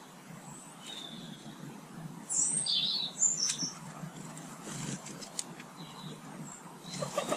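Small garden birds chirping: faint high calls at first, then a loud burst of high chirps a little after two seconds in, with a few short clicks.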